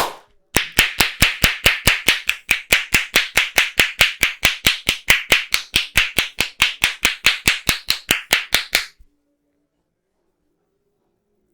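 A barber's hands slapping rhythmically in percussive massage strokes, about five sharp claps a second for some eight seconds. A single slap comes first, and the run stops abruptly.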